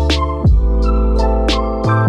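Background music: sustained chords and a deep bass line over a steady beat, with drum hits about twice a second.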